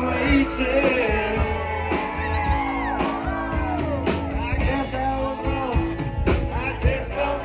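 Live rock band playing loudly: several men singing together into microphones over guitars, drums and bass.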